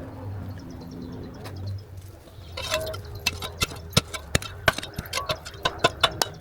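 Metal hand tool striking stone, knocking a stone loose from an old wall. A short lull, then sharp ringing strikes resume, irregular at first and settling to about three a second near the end.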